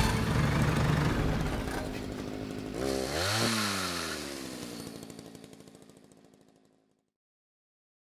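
The tail of an outro music sting fades out. About three seconds in, a short engine-like rev rises and falls in pitch, then everything fades to silence.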